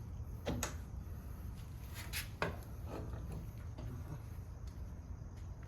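A few sharp clinks and knocks of hand tools and metal parts being handled during repair work, the loudest about two and a half seconds in, over a steady low hum.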